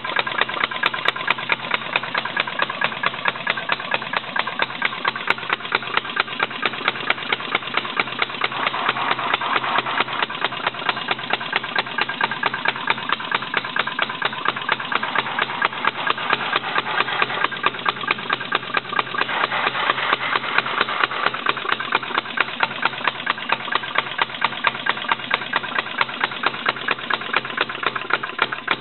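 RMC Type D non-compression engine running steadily, firing in an even beat of sharp reports several times a second.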